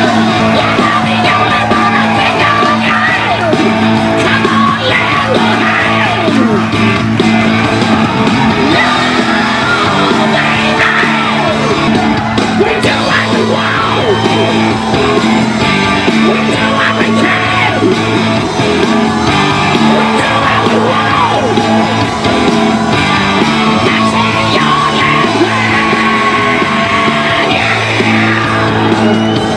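Rock song playing: a male singer yells and sings the lines over electric guitar, with a steady backing throughout.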